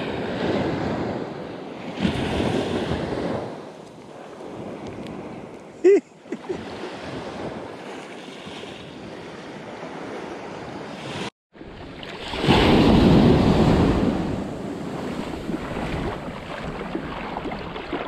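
Small surf waves washing up on a sandy beach, with wind buffeting the microphone. The wash swells and fades twice, with a short sharp knock about six seconds in and a brief cut to silence a little past the middle.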